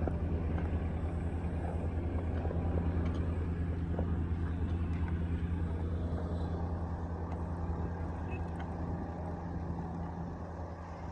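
Heavy vehicle or construction machine engine running steadily with a deep, low hum, fading away near the end.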